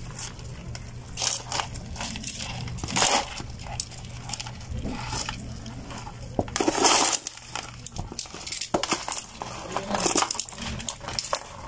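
Clicks, clinks and rustles of freshly caught fish and small crabs being handled in plastic basins, with a louder scraping burst a little past the middle, over a faint low steady hum.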